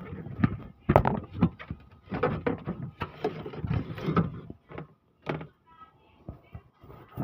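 Irregular knocks and clatter of handling, the loudest a sharp knock about a second in, dying away to scattered faint clicks after about 4.5 seconds.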